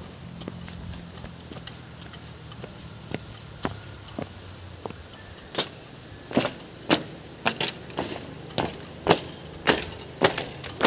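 Footsteps on a bamboo-pole footbridge: the poles knock and clack under each step, about two a second, loud and regular from about halfway in. Before that come fainter, scattered clicks of steps along a dirt path.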